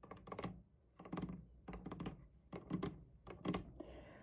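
Keys being typed on a mechanical keyboard: quick irregular runs of sharp key clicks, in about five short bursts with brief pauses between.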